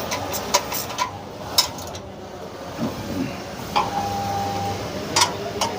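Sharp clicks and knocks of metal parts and hand tools while an industrial sewing machine stand is being assembled, with a brief steady whine about four seconds in.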